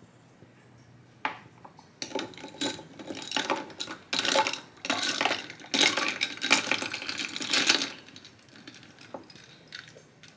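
Ice cubes clinking and rattling against a tall glass as an iced coffee is stirred, in a steady run of rapid clinks for about six seconds, with a single tap shortly before and a few faint ticks after.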